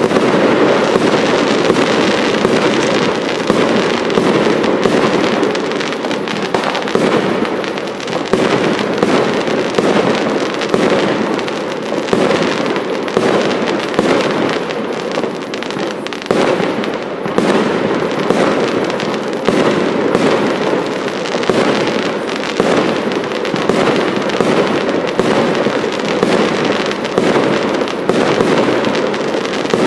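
Aerial fireworks firing in rapid succession, many bangs and pops running together without a pause. The volley sets in suddenly at the start and keeps up at a steady loudness.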